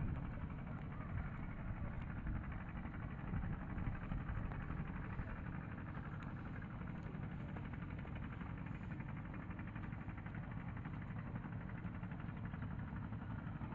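A boat engine running steadily: a continuous low rumble with a fast, even pulse.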